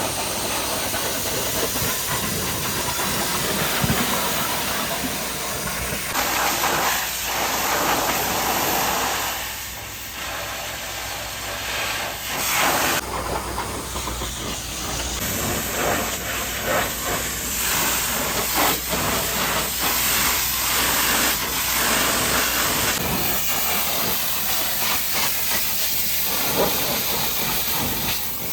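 High-pressure washer jet spraying water onto a grimy tanker truck: a continuous hiss of spray that changes in tone several times, dropping a little about ten seconds in.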